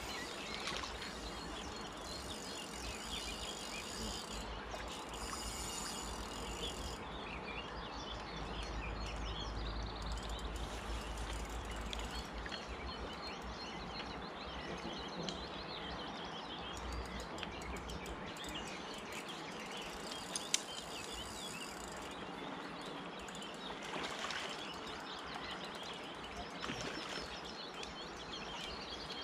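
Riverside ambience: a fast river running steadily over stones, with small birds chirping and singing throughout. A low rumble swells in about eight seconds in and fades a few seconds later.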